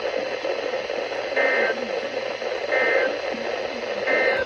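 Weather radio receiver hissing with static while three short two-tone digital data bursts sound about 1.4 seconds apart: the Emergency Alert System end-of-message code that closes the alert. The static cuts off right at the end.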